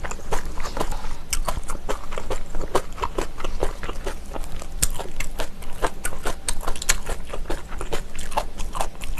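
Close-miked chewing of kimchi with rice: a run of irregular crunches and wet clicks, several a second.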